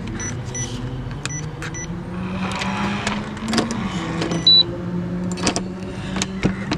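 A key being tried over and over in a door lock that won't open: scattered clicks and a few short high beeps over a steady low hum.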